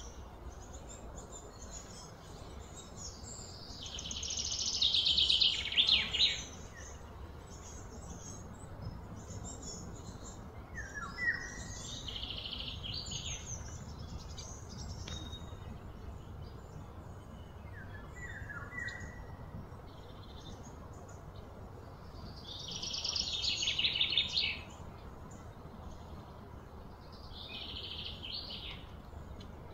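Birds calling outdoors: two loud, fast trills that each swell over about two seconds and stop abruptly, one a few seconds in and one near the end, with shorter trills and brief chirps between.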